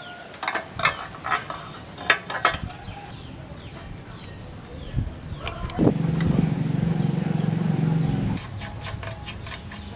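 Light metal clicks and taps of a bicycle suspension fork and headset parts being fitted into the frame, then an unidentified steady low hum for about two and a half seconds, starting about six seconds in.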